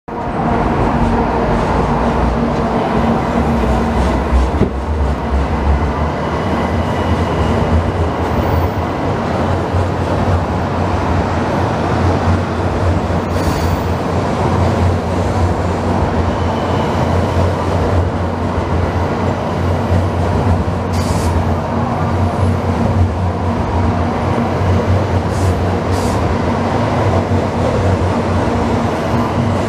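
700 Series Shinkansen bullet train moving slowly along the platform, giving a steady, loud low rumble and hum with a few faint clicks.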